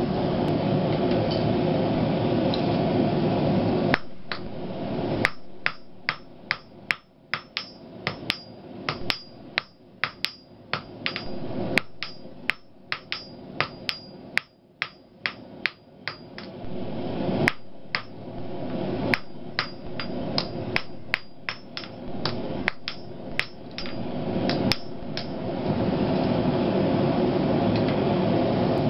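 Blacksmith's hand hammer striking steel on the anvil, about two ringing blows a second for some twenty seconds, between stretches of steady rushing noise about four seconds long at the start and at the end.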